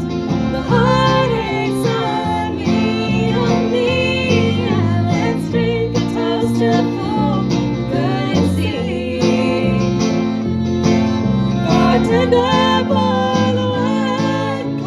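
Country band playing: guitars and a gliding melodic lead over a moving bass line.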